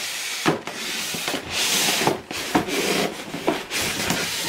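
Cardboard box being slid off a polystyrene foam packing block: repeated rubbing and scraping strokes with a few light knocks.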